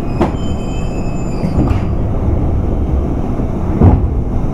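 JR West 201 series electric train running, heard from inside motor car MoHa 200-247: a steady rumble of wheels on rail, with a few knocks of wheels over rail joints, the loudest near the end. A faint high whine fades out about two seconds in.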